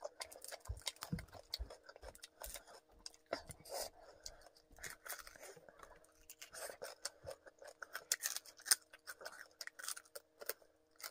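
Crispy deep-fried chicken crackling and crunching as it is torn apart by hand and chewed close to the microphone, a dense run of sharp crackles.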